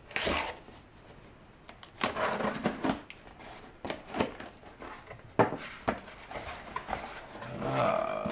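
Packing tape on a cardboard shipping box being slit with the blade of a Leatherman Wave multitool and the cardboard flaps pulled open: short bursts of scratchy tearing and rustling, with a couple of sharp clicks midway.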